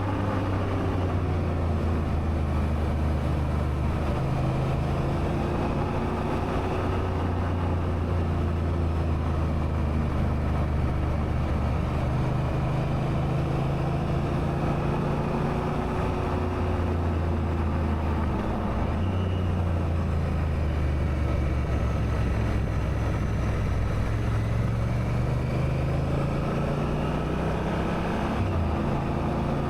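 Honda Africa Twin's parallel-twin engine running steadily while riding, with wind and road noise. The engine note dips briefly about two-thirds of the way through and again near the end, then climbs in pitch.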